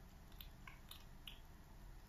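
Near silence with a handful of faint, short ticks and scratches from a kitten playing at a cardboard roll on a shaggy rug.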